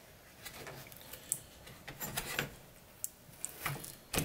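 Hands working a TV's plastic speaker box loose from the metal rear chassis: a scattered run of small clicks, taps and rustles of plastic and sheet metal, busier toward the end.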